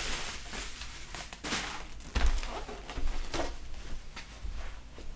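Unpacking noises: scattered rustling of packing foam and wrapping, with a dull thump about two seconds in as a wrapped box is set down on a glass tabletop.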